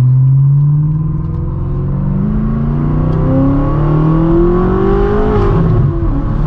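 BMW M6 Gran Coupe's twin-turbo V8, with catless downpipes and a straight-piped exhaust, pulling hard under acceleration, the revs climbing steadily for about five seconds. Near the end the engine note dips and drops in pitch on a manual upshift, then pulls again.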